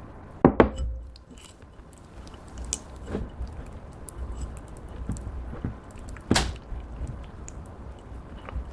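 Clear slime being worked by hand, giving sticky squelches and a few sharp clicks and pops. The loudest pops come about half a second in and again just past six seconds.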